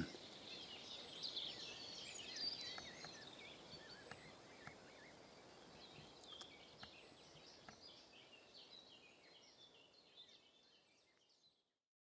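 Faint dawn chorus of many small songbirds in a forest, a mix of overlapping chirps and trills, fading away to silence about ten seconds in.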